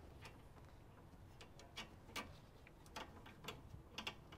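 Faint, irregular light clicks and taps from gloved hands fitting a braided brake line to the brake caliper by hand.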